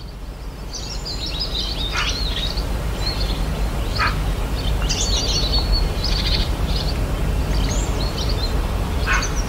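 Several wild birds chirping and calling in woodland, short high calls scattered throughout, over a steady low rumble.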